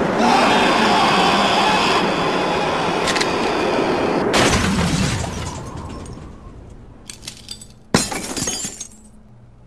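Glass shattering and debris crashing down: a long, loud crash that fades over several seconds. A few small clinks follow, then one last sharp crash of glass near the end.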